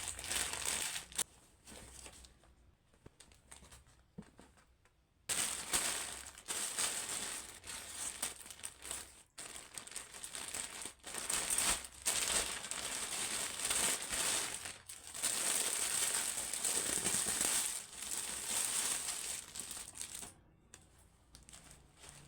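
Packaging crinkling and rustling as it is handled and unwrapped by hand. There is a quieter gap from about one and a half to five seconds in, and the crinkling stops shortly before the end.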